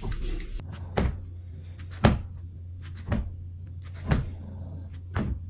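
Five sharp knocks, about a second apart, over a low steady hum.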